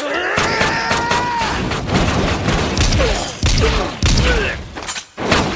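Anime fight-scene sound effects: a drawn-out shout in the first second or so, then a dense run of impacts, thuds and booms.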